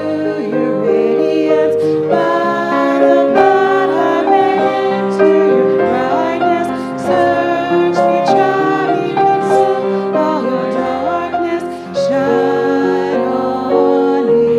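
A church worship team singing a hymn: two women's voices lead at microphones with a small choir behind, over piano accompaniment, in long held notes.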